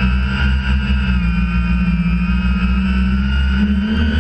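Quadcopter's electric motors and propellers whining steadily, heard up close through its own onboard camera over a heavy low rumble; several whining tones drift slightly in pitch as the rotors change speed.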